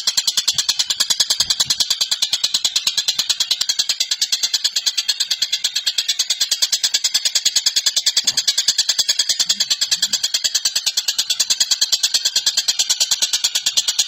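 Tengkek buto (Oriental dollarbird) calling in a continuous rapid rattle of sharp, high notes, about seven or eight a second, without a break.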